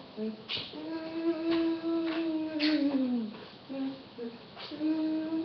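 A child's voice singing wordless notes. There is a long held note that slides down in pitch near the middle, then a few short notes, and another held note near the end. A few light knocks sound between the notes.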